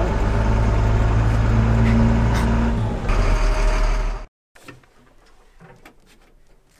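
Stewart & Stevenson M1078 military truck's diesel engine droning steadily under way, with road noise. About four seconds in, the sound cuts off abruptly to a much quieter stretch of faint clicks and rustles.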